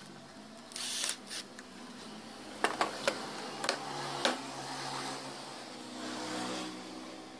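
Old electric hand planer being handled and set down on a wooden workbench: a short rattle about a second in, then several sharp knocks and clatters of its metal body and shoe against the wood.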